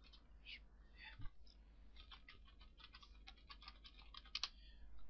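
Computer keyboard being typed on in quick runs of faint key clicks, with one sharper click near the end.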